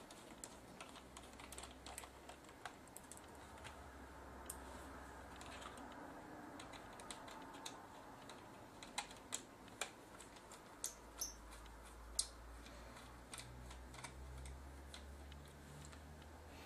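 Faint, irregular small clicks and taps of a camcorder being taken apart by hand, its screws, plastic and metal housing parts and connectors being handled, with a few sharper clicks just past the middle, over a faint low hum.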